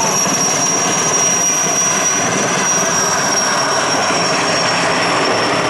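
Sikorsky S-64 Air-Crane (CH-54B) twin-turbine heavy-lift helicopter flying low overhead: a steady high turbine whine over a dense rush of rotor and engine noise, the whine sinking slightly in pitch.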